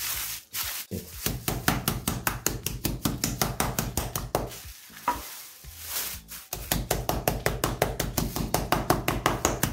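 Meat mallet pounding chicken breast through a plastic bag on a wooden cutting board: fast, even blows at about five a second, stopping for about two seconds in the middle and then starting up again.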